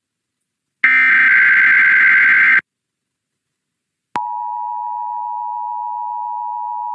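Emergency Alert System SAME header: a burst of rapid warbling digital data tones lasting under two seconds, starting about a second in, which marks the start of an EAS alert. After a short silence, the EAS two-tone attention signal begins about four seconds in and holds steady.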